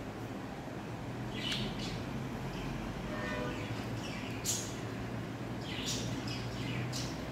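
Handling noise as a phone and its frosted clear plastic case are handled: a few brief scratchy rustles over a steady low hum, with a faint short squeak about three seconds in.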